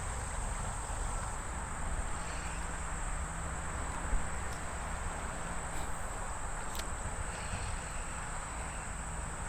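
Steady high-pitched chorus of insects chirring in summer, over a low background rumble, with a single sharp tap about four seconds in.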